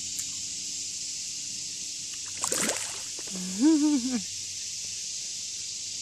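An alligator's splash as it snaps at bait dangled just above the water, followed about a second later by a person's short, wavering, voiced exclamation, over a steady hiss.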